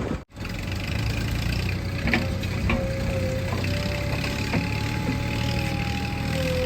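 Diesel engine of a heavy machine running steadily, with a wavering whine over it and a few sharp metallic clanks. The sound cuts out for a moment just after the start.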